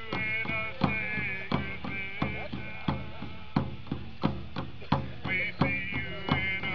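Native American song: hide frame hand drums beaten in a steady, even beat, with voices singing over them.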